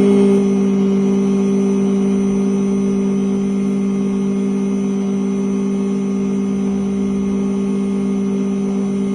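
Electric key-cutting machine's motor running at a steady pitch with a loud hum, as a new key is cut to the code read from the door lock.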